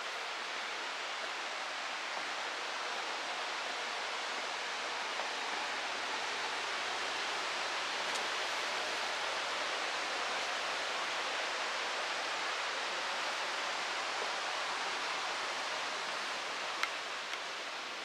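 Steady rushing of water from a waterfall, with one brief click near the end.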